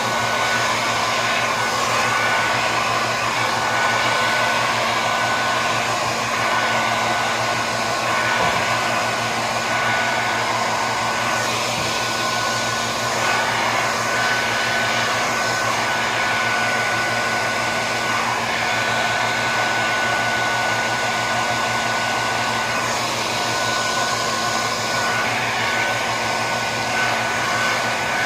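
Blow-dryer running steadily, a constant rush of air with a thin high whine over a low hum, blowing out poured acrylic paint.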